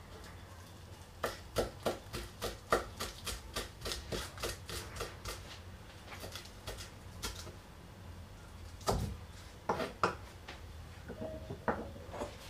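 Kitchen knife chopping fresh parsley on a thick wooden cutting board: a fast run of short knocks of the blade on the wood, about four a second, then a few slower, scattered cuts, with two louder knocks later on.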